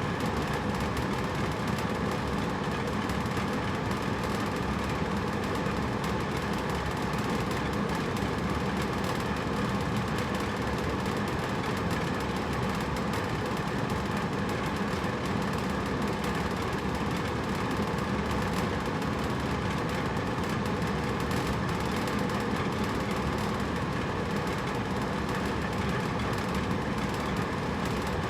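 Hotel room air conditioner running: a steady, unchanging rush of air with a low hum.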